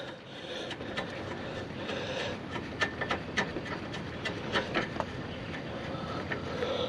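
Light scattered clicks and small metal clinks of 10 mm bolts being screwed in to hold the AC lines, over a steady low hiss.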